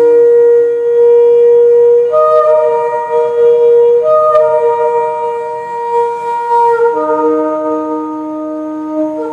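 A long shofar blown in sustained held notes that shift in pitch several times, dropping to a lower note about seven seconds in.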